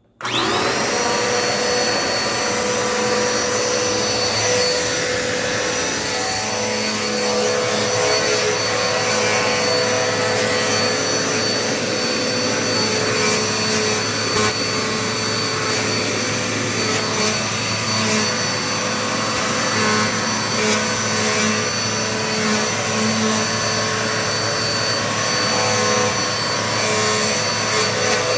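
Dirt Devil Multi-Surface vacuum cleaner switched on, its motor spinning up to speed within the first half second, then running steadily with a high whine while vacuuming a floor.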